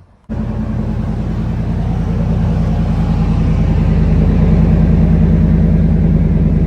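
Truck engine running at a steady idle: an even low rumble that comes in abruptly just after the start and grows a little louder over the next few seconds.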